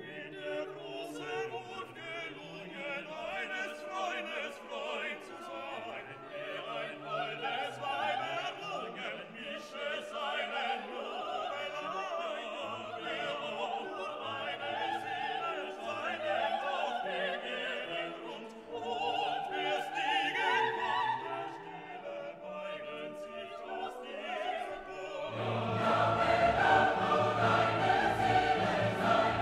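Background music: classical operatic singing over an orchestra. About 25 seconds in it gets louder and fuller, with deep bass.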